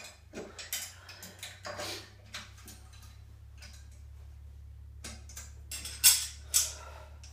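Light metallic clinks and clicks as a steel loading pin and its weight plates are handled, with two louder clicks about six seconds in. A steady low hum runs underneath.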